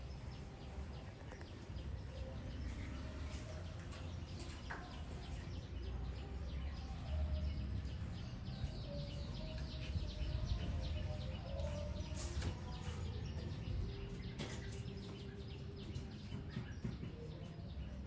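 Baby birds cheeping: many short, high chirps in quick runs, over a steady low rumble.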